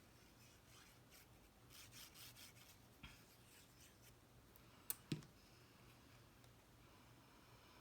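Quiet handling of cardstock pieces being fitted and glued: faint rubbing and rustling of paper, with two sharp clicks close together about five seconds in.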